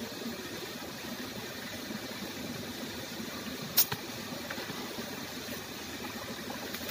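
A steady low mechanical hum, with one sharp click nearly four seconds in.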